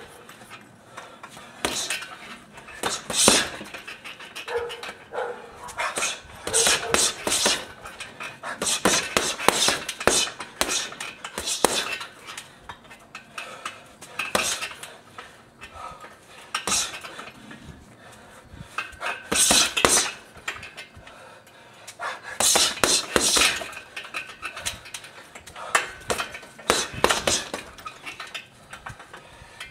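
Boxing gloves smacking a hanging heavy bag in quick combinations, each flurry of a few punches followed by a short pause of a second or two.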